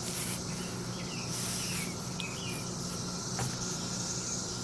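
Steady background hum and high hiss with faint chirps, and one sharp click about three and a half seconds in.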